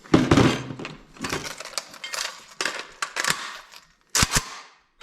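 Rifle shots echoing in an indoor shooting range: one very loud shot at the start, then several more about a second apart, ending in a quick pair near the end.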